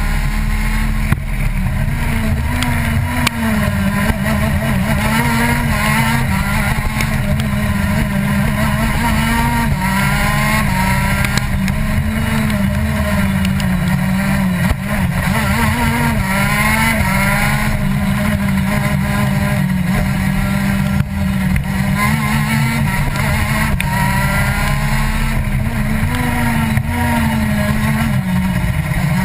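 Racing kart engine running continuously, with repeated rising rev sweeps.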